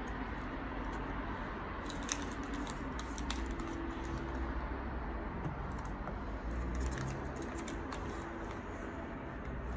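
Small clicks and light metallic rattles of a 2.5-inch SSD, its metal drive holder and tiny screws being handled and screwed together, clustered a couple of seconds in and again later, over a steady low hum.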